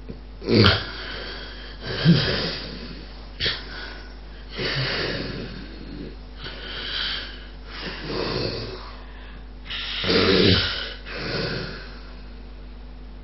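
Loud snoring from a sleeper with obstructive sleep apnea: a fast run of about eight separate snoring breaths, roughly one every second and a half, the loudest in the first two seconds and again near the end.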